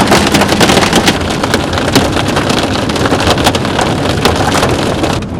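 Hard rain pelting a moving vehicle's body and windshield in rapid sharp hits, over steady road and wind noise, slightly easing about a second in.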